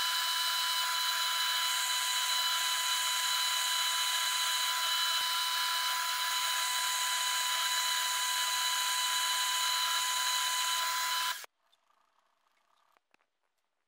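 Milling machine spindle running steadily with a whine of several steady tones as an end mill pecks holes into the head of a small threaded plunger; the sound cuts off suddenly about eleven seconds in.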